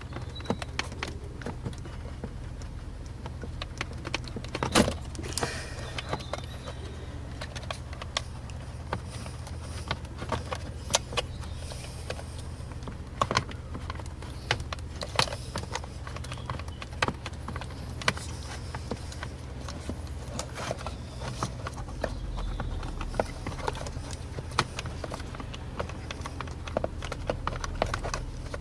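Irregular plastic clicks and knocks of wiring connectors being unclipped and pulled off a car's headlight switch, over a steady low hum.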